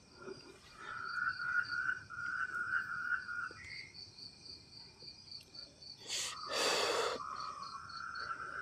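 Night insects, crickets among them, chirping and trilling in two layers: a high steady pulsing and lower chirp runs that come and go. A short breathy rush of noise cuts across them about six seconds in.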